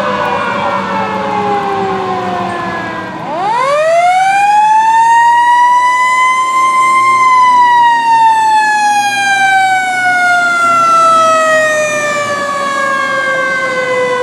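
Fire truck siren falling in pitch, then wound up again about three seconds in with a fast rise, peaking and slowly coasting back down.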